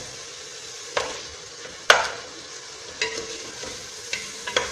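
Chicken pieces, onion and chickpeas sizzling as they fry in oil in a pressure-cooker pot while being stirred with a spoon. A few sharp clicks of the spoon against the pot come through the sizzle, the loudest about two seconds in.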